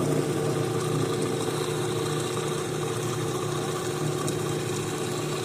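Electric food mixer's motor running steadily with an even hum, whisking egg yolks while the first hot butter drips in for hollandaise.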